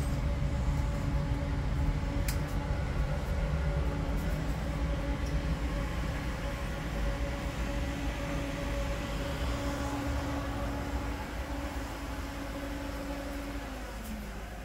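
Steady low mechanical rumble with a constant hum from a running machine, easing slightly toward the end, with a single sharp click about two seconds in.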